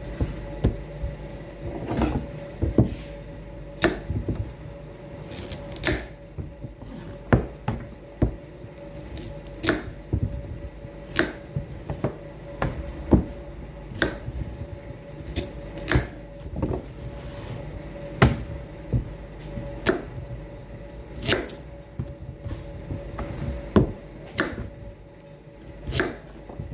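Kitchen knife cutting yellow carrots on a wooden cutting board: sharp, irregular knocks of the blade meeting the board, about one a second, over a faint steady hum.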